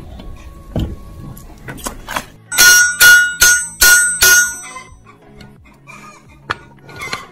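Hammer striking a steel driveshaft yoke resting on a railway rail, driving out the universal-joint cross. About five loud, ringing metal blows come in quick succession around the middle, with lighter taps before them and a single sharp knock near the end.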